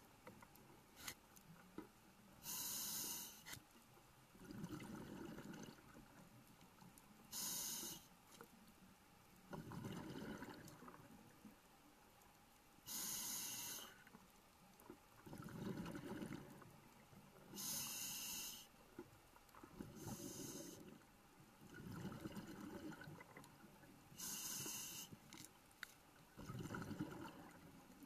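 Scuba diver breathing through a regulator, heard through an underwater camera housing: a short hiss on each inhale, then a longer low bubbling rush of exhaled bubbles, repeating about every five seconds.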